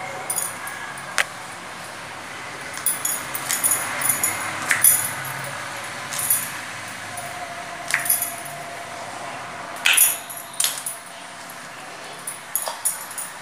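Kitchen knife chopping vegetables on a wooden block: a dozen or so sharp, irregular knocks of the blade hitting the wood.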